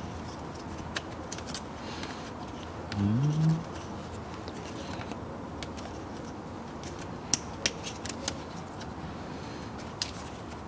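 Plastic clicks and papery rustling as a pleated cabin air filter is handled and pressed into its plastic cassette frame, with a few sharp clicks past the middle and one near the end. About three seconds in, a short rising hum from a person's voice.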